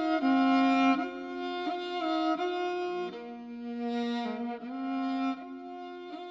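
Background music: slow bowed-string instruments hold long notes in chords, moving to a new chord every second or so and growing softer toward the end.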